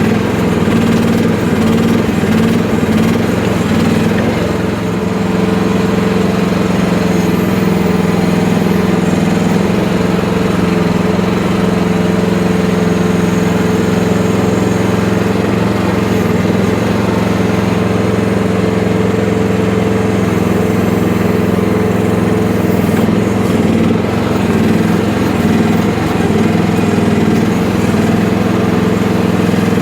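FF12 mini excavator's small engine running steadily under work, a constant loud drone with slight dips in load.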